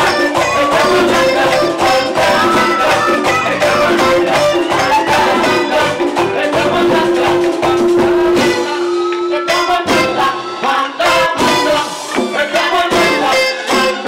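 Live merengue band playing a fast number with congas and electric guitar; the bass drops out for a moment about nine seconds in, then the full band comes back.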